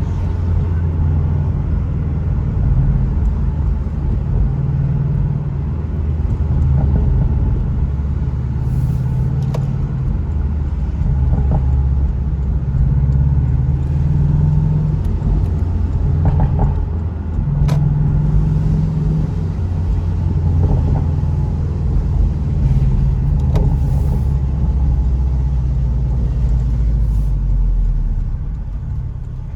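Porsche 718 Boxster's engine running while driving, its low note shifting up and down with changes of throttle and gear.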